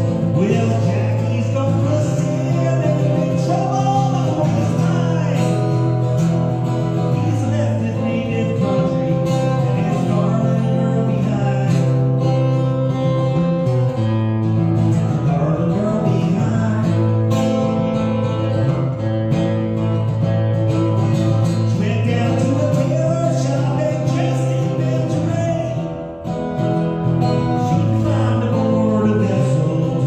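Acoustic-electric guitar strummed steadily through a PA, with a man singing over it in places. The playing dips briefly about four seconds before the end.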